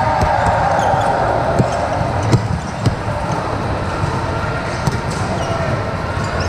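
Sports hall ambience of indoor volleyball: scattered sharp knocks of volleyballs being hit and bounced on the hardwood and sport floors, over a steady echoing hubbub of play and voices in the hall.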